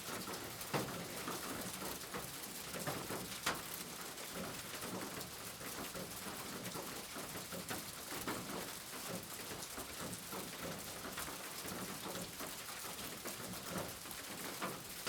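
Steady rain falling as a dense, even hiss, with a few sharper drop hits standing out, the loudest near the start and about three and a half seconds in.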